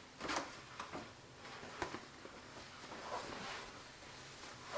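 Faint rustling and soft handling noises of a cloth tote bag being lifted and held up, in a few short scrapes with small clicks, the loudest near the start.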